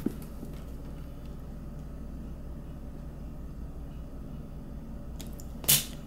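Steady low room hum, then near the end a faint click and a sharp snap as a self-adjusting wire stripper clamps and pulls the insulation off the end of a solar cable.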